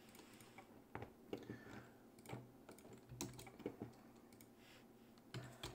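Faint clicks of a computer keyboard and mouse: a scattering of separate keystrokes and clicks.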